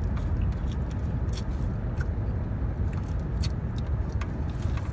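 Steady low rumble of a car's running engine heard from inside the cabin, with scattered small clicks and taps from food and containers being handled.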